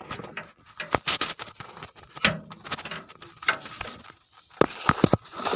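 Irregular rustling with many sharp clicks and knocks: handling noise of the handheld camera being moved around the pump hoses, with hands rubbing near the microphone.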